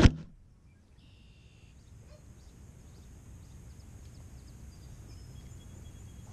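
A 4-inch FPV racing quad's brushless motors whine down, falling in pitch, and cut off with a knock as it drops into the grass right at the start. After that only faint outdoor ambience with a few thin bird chirps.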